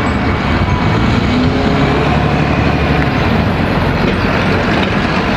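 Double-decker bus driving through a turn: steady engine rumble under a wash of road noise.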